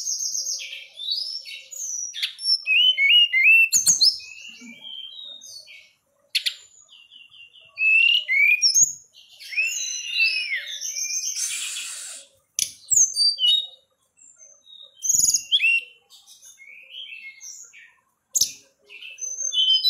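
Caged tledekan gunung (sulingan) songbird singing in full voice: a long, varied run of quick whistled notes, slurs and trills with short pauses between phrases. A few soft knocks are heard now and then.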